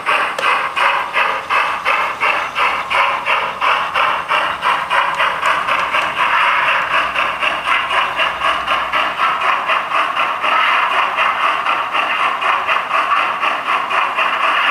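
Model train running along the layout track, a steady rhythmic clatter of about three to four beats a second that evens out for a couple of seconds midway before the beat returns.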